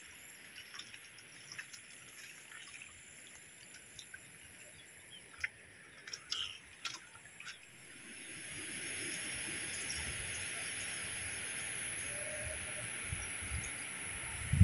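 Quiet outdoor ambience with faint scattered ticks. About eight seconds in, a steady hiss of water comes up and holds, and a few low thumps follow near the end.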